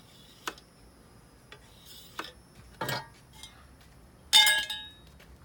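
A few light clicks and knocks of metal being handled, then a loud, ringing metallic clang about four seconds in.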